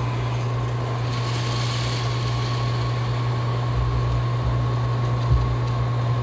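Steady low machine-like hum with a faint, thin high whine held above it, and a soft knock about five seconds in.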